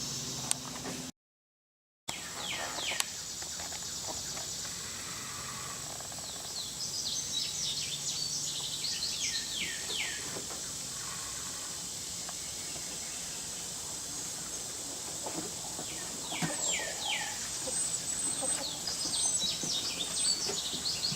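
Small birds chirping in quick runs of high, falling notes, twice, over a steady high insect drone. The sound drops out for about a second near the start.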